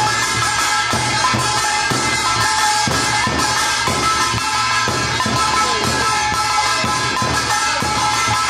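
Traditional Korean folk drums and percussion playing a steady beat, about two strikes a second, under a sustained high tone.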